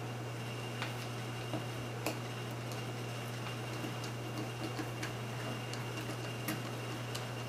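Scattered faint clicks and light ticks of small plastic plug parts and a screw being handled and fitted together, over a steady low electrical hum.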